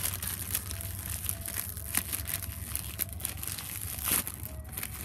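Plastic ice cream bar wrapper crinkling as it is handled, a dense run of irregular crackles.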